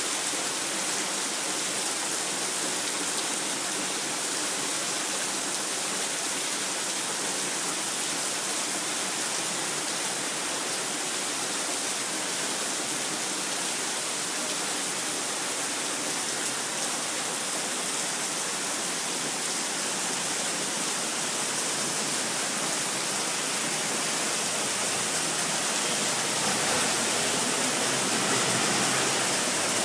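Heavy monsoon rain pouring steadily, a dense even hiss that grows a little louder and fuller near the end.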